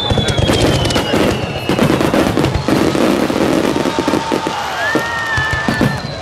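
Fireworks display: a dense, rapid crackle and banging of aerial shells bursting, over the hiss of a Niagara waterfall firework. A few thin whistling tones run through it, one slowly falling in pitch and another higher and steady near the end.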